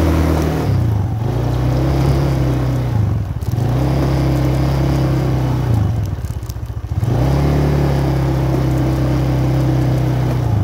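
ETON ATV engine running under way as the quad is ridden, its revs dipping and picking back up three times: about a second in, at about three and a half seconds, and again between six and seven seconds.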